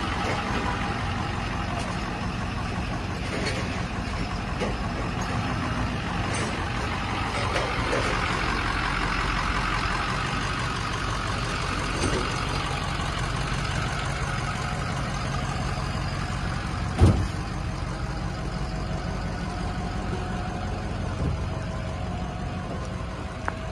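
2006 Ford F-450's 6.0-litre Power Stroke V8 diesel idling steadily, with one sharp knock about two-thirds of the way through.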